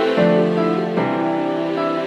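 Background music: held chords that change about a fifth of a second in and again at about one second.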